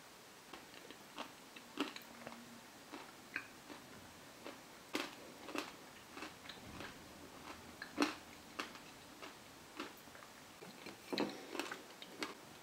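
Faint, irregular crisp clicks and taps, roughly two a second, from hard chocolate lollipops with plastic sticks being handled over ceramic plates.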